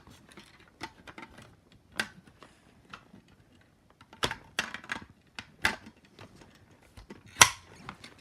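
Scattered light clicks and knocks of handling, the sharpest a little before the end; no alarm tone sounds.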